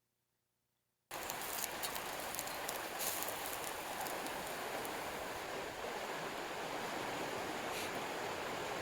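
Mountain stream flowing: a steady rush of water that starts abruptly about a second in, after near silence.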